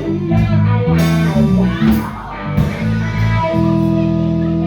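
Live band jam with guitars and bass: a moving bass line under guitar, settling onto a held chord about three and a half seconds in.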